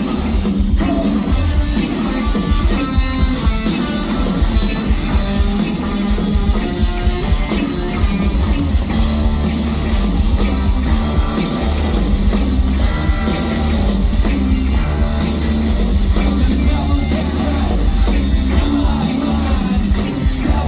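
Live rock band playing with singing, electric guitar, drums and heavy bass, loud and steady throughout.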